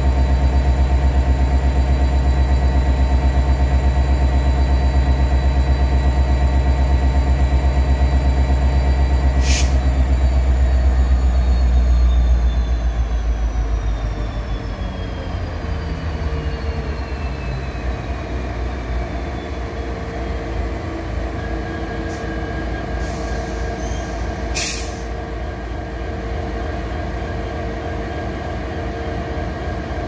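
EMD SD70ACe/45 diesel-electric locomotive's 16-cylinder two-stroke engine running loud with a deep pulsing throb. About halfway through it drops back to a lower, quieter running, while a high whine slowly falls in pitch over several seconds.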